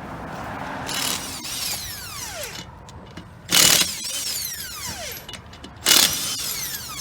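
Pneumatic impact wrench loosening lug nuts in three short bursts, about a second, three and a half and six seconds in. Each burst is followed by a falling whine as the tool spins down.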